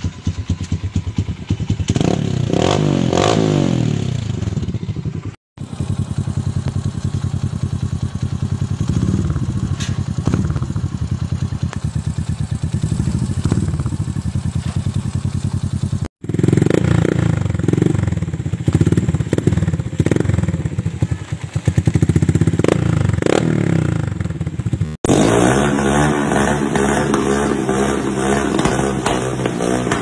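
Neptune 125 motorcycle engines running through aftermarket exhaust mufflers. Several bikes follow one after another, each idling and revved with repeated throttle blips. The sound cuts abruptly from one bike to the next three times.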